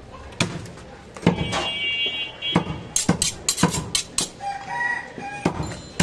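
A butcher's knife being honed on a sharpening steel: a series of sharp metal-on-metal strokes, coming fastest about three seconds in. Chickens call in the background.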